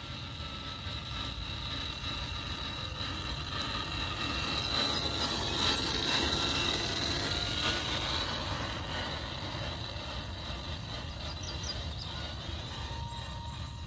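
Rlaarlo MK-07 1/7-scale RC crawler's brushed electric motor and geared transmission whining steadily as it drives, loudest about midway through as it passes close.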